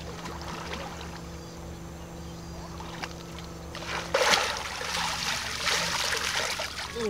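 Muddy shallow water splashing and sloshing as a plastic basket is plunged in and lifted out, with water draining through its holes; the water noise starts suddenly about four seconds in. Before that a steady low hum runs underneath.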